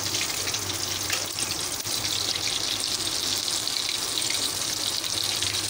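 Flour-coated chicken pieces deep-frying in hot oil in a steel pan: a steady sizzle.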